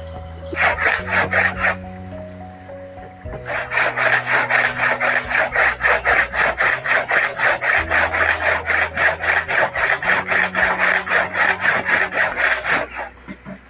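Hand saw cutting into a thick wooden log with fast back-and-forth strokes: a short run of strokes about half a second in, a pause, then steady sawing from about three seconds in until near the end.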